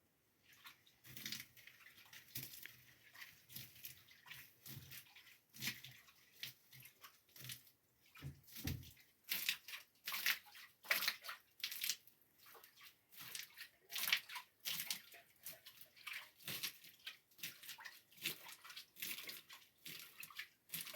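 Water splashing and sloshing in many short, irregular strokes.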